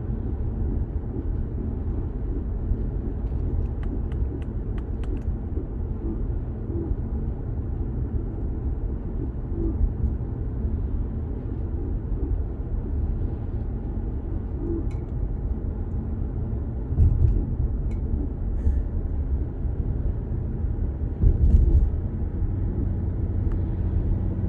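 BMW 525d's M57 diesel engine running with a steady low grinding rumble, the friction noise the owner is trying to trace. It swells briefly twice in the second half.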